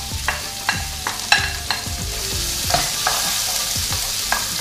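Diced red onion sizzling as it hits hot oil in a frying pan, with a steady hiss throughout. Over it come sharp knocks and scrapes of a wooden spatula against the bowl and pan, a quick run of them in the first couple of seconds and a few more as the onions are stirred.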